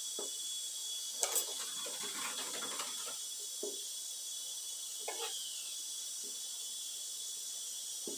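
Kitchen knives slid one by one into the slots of a wooden log knife block: two sharp knocks about a second in, then scattered scrapes and light taps of steel on wood. A steady high insect chirring runs underneath.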